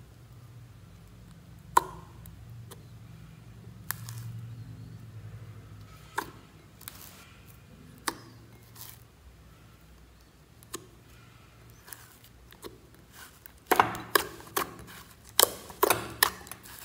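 Thick glitter slime being stirred with a spatula and then squeezed by hand in a glass bowl: scattered sticky clicks and pops, with a quick run of louder pops and crackles about three-quarters of the way through.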